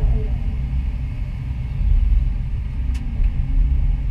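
Doosan DX225 excavator's diesel engine running under load as a steady low rumble heard inside the cab, while the machine swings and dumps a bucket of soil. A single sharp click about three seconds in.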